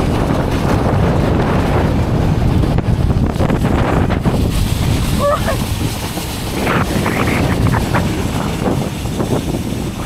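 Snow tube sliding fast down a snowy slope: a loud, steady rush of wind buffeting the microphone over the hiss of the tube on the snow. A short burst of voice comes about five seconds in.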